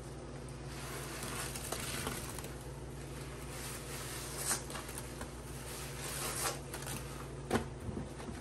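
Sponges loaded with a thick wet paste of grout and Comet cleanser being squeezed and pressed by rubber-gloved hands: wet squelching and crackling throughout. A few sharper squishes come in the middle and near the end.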